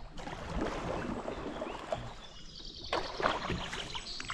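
Kayak paddling: paddle blades dipping and splashing in the river water, with a couple of sharper splashes about three seconds in.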